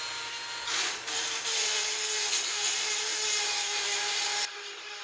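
Dremel rotary tool whining at speed as its bit grinds corrosion off the brake pad clip area. The grinding builds about a second in, gets loud, and stops abruptly near the end while the motor keeps spinning.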